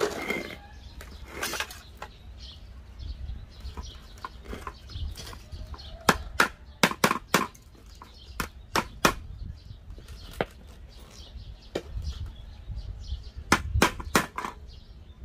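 Hammer striking the edge of an old gas stove's sheet-metal top plate: quick runs of sharp knocks, several a second, with pauses between runs. Softer knocks from the plate being handled come before the hammering begins.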